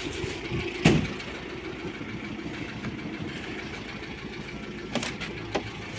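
VAZ-2101 engine idling steadily, not yet warmed up after a night's standing, with a sharp click about a second in.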